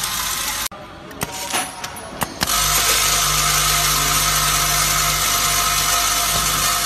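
Screw and bolt weighing-and-dosing packing machine running with a steady mechanical hum while a weigh hopper fills. The hum drops away about a second in, a few sharp clicks follow, and it returns louder about two and a half seconds in.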